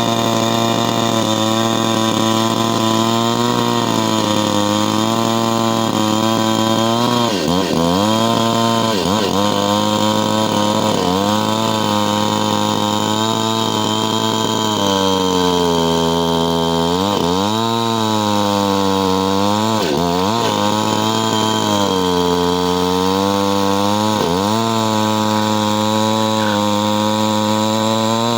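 STIHL chainsaw's two-stroke engine running at high speed, its pitch dipping sharply and climbing back several times as the engine speed falls and recovers.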